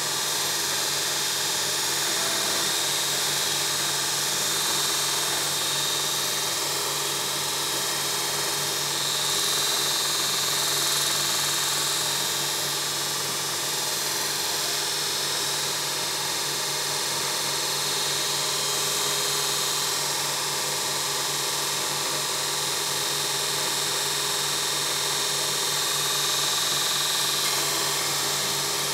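A 2x42 belt grinder running steadily, its motor humming, while steel is ground against the abrasive belt. The grinding hiss swells a few times, around a third of the way in and again near the end.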